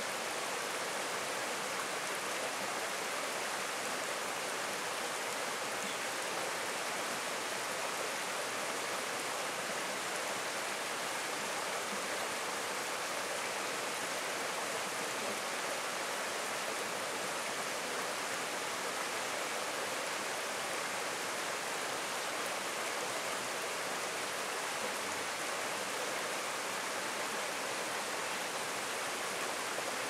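Rocky stream flowing: a steady, even rush of water with no breaks.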